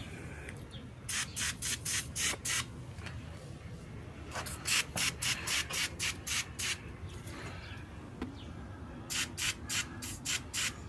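Aerosol spray can being squirted onto the door-frame screws in short quick puffs, several a second, in three runs. The spray is meant to let the metal soak and loosen the paint around the screws.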